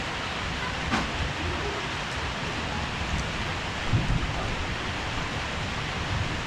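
Heavy rain falling steadily, a dense even hiss. A sharp knock sounds about a second in, and a short low thump around four seconds in.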